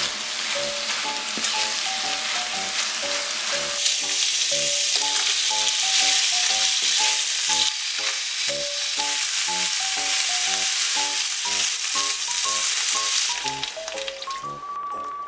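Food sizzling in a hot frying pan, louder from about four seconds in while shrimp fry, and dying away near the end. A light melody of short notes plays over it throughout.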